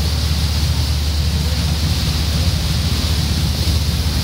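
River cruise boat under way: its engine drones steadily beneath the constant rush of the churning wake.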